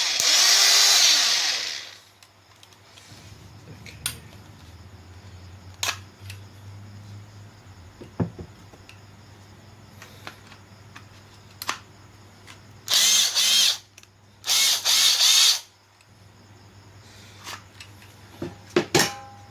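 Cordless Bosch power tool motor running on an 18-volt lithium battery through a home-made adapter, triggered in short bursts: two spin-ups and run-downs in the first two seconds, then two more bursts of under a second each about 13 and 15 seconds in. Light clicks and knocks from handling fall between the bursts.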